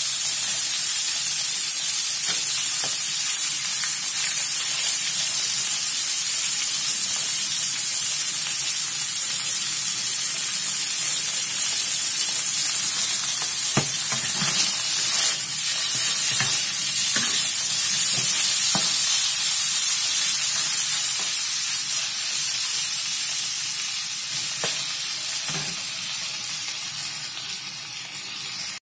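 Chicken pieces sizzling in hot oil in an iron wok as they are stir-fried, with a few short knocks of the spatula against the wok. The sizzle eases a little over the last few seconds.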